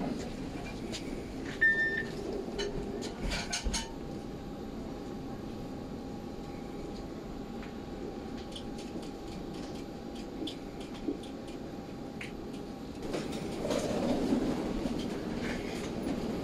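Steady hum and low rumble in an airport jet bridge, with a single short electronic beep about two seconds in and a few clicks shortly after. Near the end the rumble grows louder as a wheeled suitcase is rolled along the floor.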